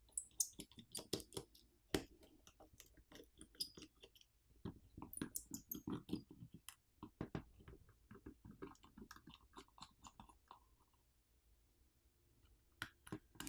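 Small screwdriver working out the Phillips screws that hold a wall charger's prong assembly to its plastic housing: faint irregular clicks and scrapes of metal on screw heads and plastic, stopping for a moment near the end before a few more clicks.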